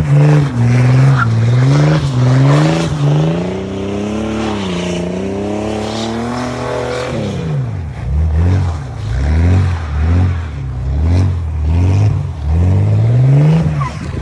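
Car engine revved over and over, its pitch climbing and falling back about once a second. About halfway through the pitch drops sharply, and the climbs start again from lower.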